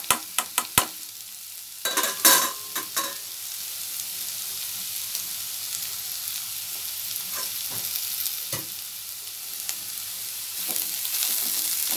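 Cabbage, carrot, peas and shredded chicken sizzling in a kadai on high flame, with a spatula knocking and scraping against the pan in quick strokes during the first three seconds. After that a steady sizzle with only an occasional scrape.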